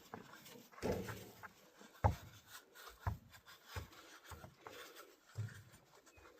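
Faint rubbing and rustling with scattered light knocks: hands handling a paper towel around the oil filter mounting surface.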